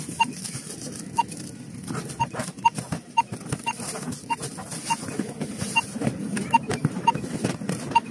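Handheld barcode scanner at a checkout beeping as items are scanned: about a dozen short, single-pitched beeps at irregular intervals. Plastic packaging rustles and crinkles as it is handled between beeps.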